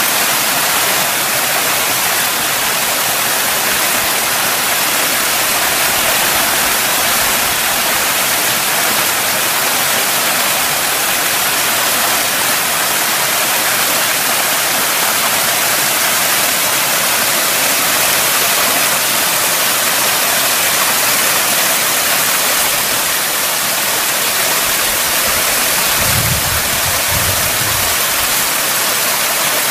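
Narrow mountain waterfall rushing steadily down a granite gorge into a pool. A short low rumble is heard near the end.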